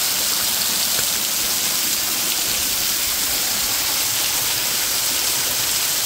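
Small waterfall pouring off a rock ledge and splashing onto wet rocks: a steady hiss of falling water.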